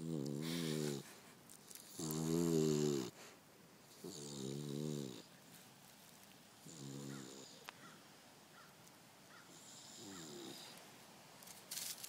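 Beagle snoring: five snores about two seconds apart, the last two fainter, with a brief rustle near the end.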